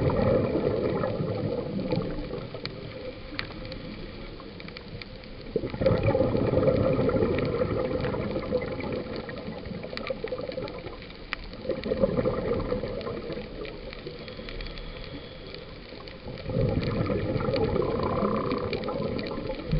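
A scuba diver's exhaled bubbles gurgle out of the regulator, heard underwater: a bubbling swell comes about every five to six seconds, four times, with quieter stretches between for the in-breaths. Faint clicks run throughout.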